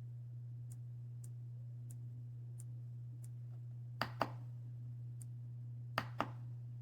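Two keystrokes on the RK Royal Kludge S98 mechanical keyboard, about 4 and 6 seconds in. Each is a sharp click pair of key press and release. Under them runs a steady low hum, with faint high ticks coming evenly about every two-thirds of a second.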